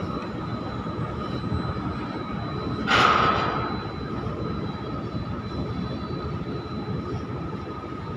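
Steady drone of port cargo-handling machinery, with a steady whine running through it, as a crane lowers a hanging shipping container. A sudden loud burst comes about three seconds in.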